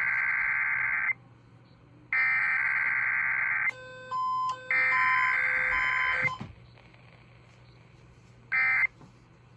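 Emergency Alert System SAME header played over the radio: three bursts of shrill digital data warble, each about a second and a half long with a second's gap between them, marking the start of an EAS test. Separate beeping tones at two pitches sound between and over the last burst, and a short blip of data follows near the end.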